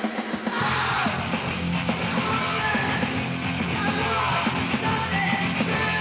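Punk rock music with yelled vocals, its fuller low end kicking in about half a second in.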